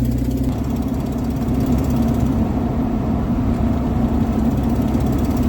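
An engine running steadily at idle with a low, even hum.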